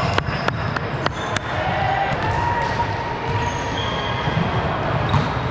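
Volleyball play in an indoor gym: several sharp ball strikes in the first second and a half, over a steady, echoing hall background with short high-pitched squeaks.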